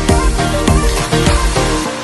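Electronic dance music with a heavy bass and a steady beat; the bass and drums drop out near the end.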